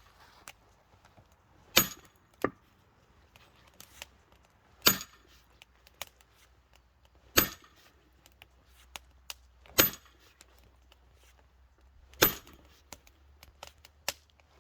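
Firewood being split: sharp chopping blows struck about every two and a half seconds, each with a short metallic ring from the blade.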